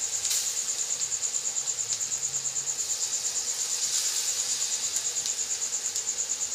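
Cricket chirping, a steady high trill that pulses rapidly and evenly, with a few faint clicks.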